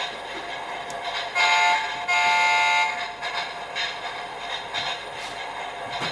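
Electronic sound chip of a Technopark toy high-speed train playing a horn effect: a short toot, then a longer one about a second later, over the toy's fainter looping background sound.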